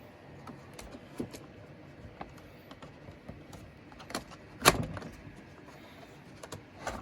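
Handling noise from vintage computer hardware: scattered small clicks and taps, with one louder knock a little over halfway through and another just before the end.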